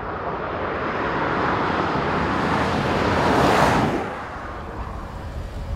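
A V8 performance sedan approaching and passing at speed, its noise swelling for about three and a half seconds and then falling away sharply.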